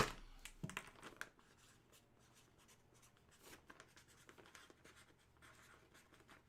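Faint scratching and handling noises on a desk, opening with a sharp click and a few lighter clicks in the first second and a half.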